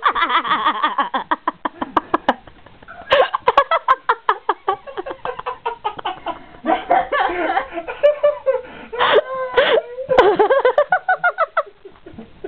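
A small group of people laughing hard, in quick repeated bursts of ha-ha, dying down briefly and breaking out again a few times.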